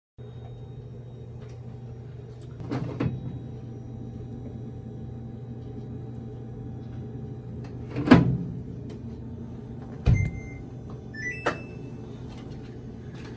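A household appliance running with a steady electric hum, with four knocks and clatters. The loudest knock comes about eight seconds in, and a few short high-pitched tones sound near the end.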